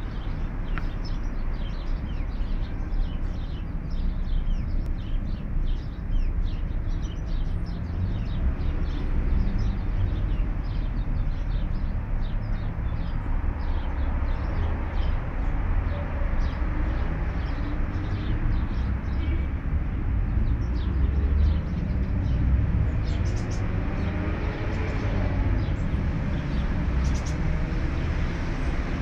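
Outdoor ambience: a steady low rumble like distant traffic or wind, with many short high chirps or ticks over it.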